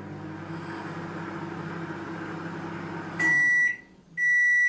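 Microwave oven running with a steady hum that stops about three seconds in, followed by two loud, steady high beeps: the end-of-cycle signal that the timed heating is done.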